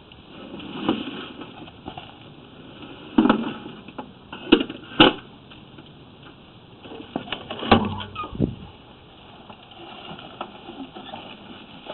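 A handful of sharp knocks and clanks, spaced a second or more apart, from drain-cleaning equipment being handled and fitted.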